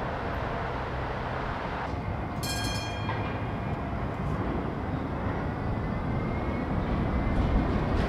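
Electric tram rumbling along rails as it approaches out of a tunnel, growing louder near the end. A brief high ringing tone comes about two and a half seconds in, and a faint thin squeal follows later.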